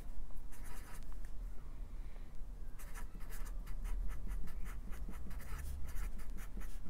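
Marker pen writing words on a white sheet: short, quick, scratchy strokes of the felt tip. A few strokes come about half a second in, then a dense run from about three seconds in.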